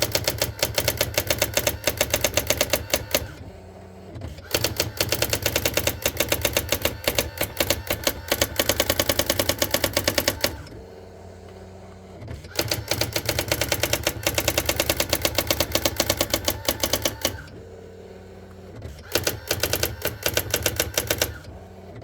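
Brother AX-400 electronic daisywheel typewriter typing out its built-in demonstration text on its own: four long runs of rapid, even keystrikes, separated by short gaps where only a low whir of its motor is heard.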